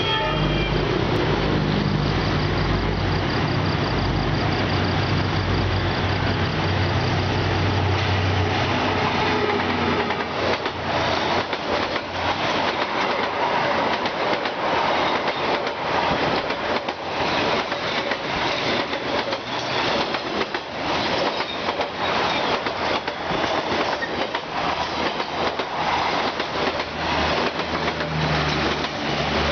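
A D19E diesel-electric locomotive passes with a heavy low engine rumble. Its train of passenger coaches follows at speed, the wheels clattering over the rail joints in a steady run of clicks.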